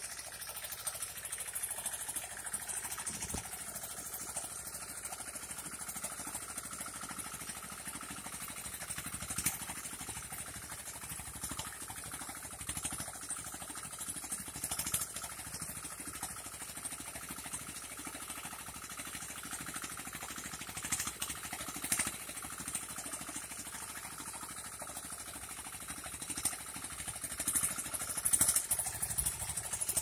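Mini tractor's engine running steadily while pulling a plough through the soil, with occasional short knocks and a louder stretch near the end.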